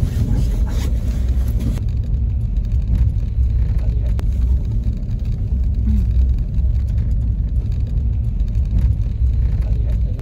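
Steady low road rumble heard inside the cabin of a moving car.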